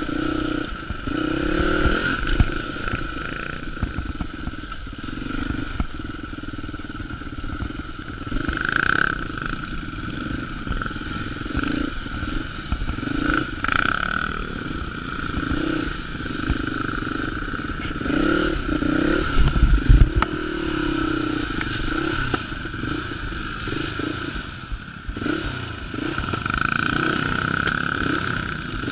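Dirt bike engine revving up and down as it is ridden over a rough sandy trail, with rattles and knocks from the bike over bumps. A heavy thump comes about two-thirds of the way through.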